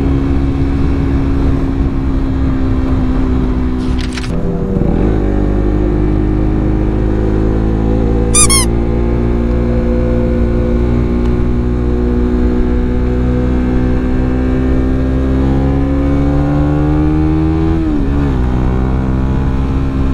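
Motorcycle engine under way, its pitch climbing slowly for about twelve seconds as it pulls through a gear, with gear changes about four seconds in and near the end. A brief high chirp about eight seconds in.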